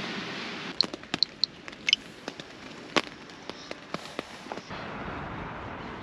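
A series of about a dozen sharp pops and cracks spread over some four seconds, with a few short high chirps among the first ones, followed by a steady hiss.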